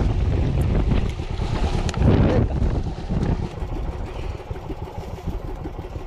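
A small fishing boat's engine running steadily at low speed, with wind and water noise, and a louder burst of noise about two seconds in.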